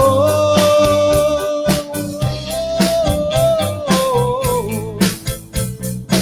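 Live band music: a long held melody line that slides down near the start and trails off about four and a half seconds in, over a bass line and steady drum hits.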